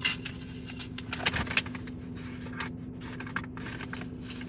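Paper envelope being worked open by hand: short, irregular rustles, crinkles and scrapes of paper, the loudest about a second and a half in, over a steady low hum.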